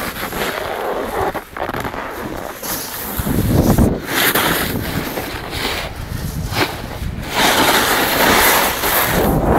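Wind rushing over the microphone of a camera carried by a skier running downhill, mixed with the hiss of skis sliding over snow. The rush swells louder about three and a half seconds in, and again from about seven and a half seconds.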